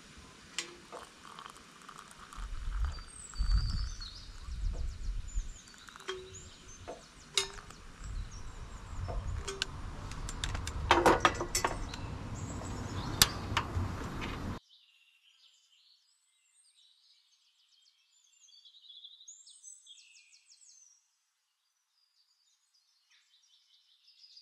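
A run of sharp clicks and clinks over a low rumble that comes in about two seconds in, with birds chirping behind. About fourteen seconds in it cuts off sharply, leaving only faint birdsong.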